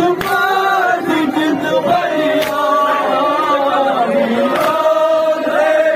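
Male reciters chanting a noha, a Shia mourning lament, in a continuous sung line into microphones. The voices are amplified through a horn loudspeaker.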